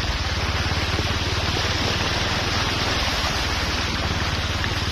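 Motorcycle engine running steadily at low speed through floodwater, its rapid even putter under a continuous rush of splashing, churning water.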